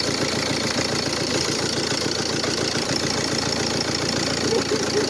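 Ford Focus diesel engine idling steadily, with the fast, even clatter of a diesel at idle.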